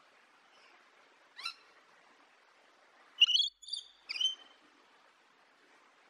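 Rainbow lorikeet calling: one brief high-pitched call about a second and a half in, then three louder, harsher calls in quick succession about three seconds in.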